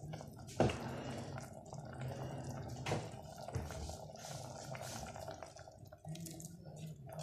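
Thick chickpea curry bubbling as it simmers in an aluminium pot, a steady crackle of small pops with two sharper pops, the first about half a second in and the loudest. Near the end a spatula stirs through the sauce.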